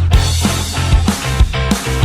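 Instrumental rock-style music with guitar and a steady beat of low drum thumps about twice a second.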